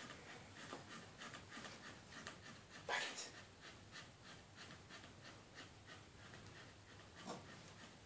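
Dogs panting faintly and quickly, with one louder short huff about three seconds in.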